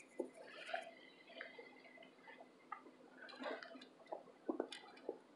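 Burnt baked cornstarch brick being crumbled and eaten: soft, scattered crunches and clicks, with a few sharper ones in the second half.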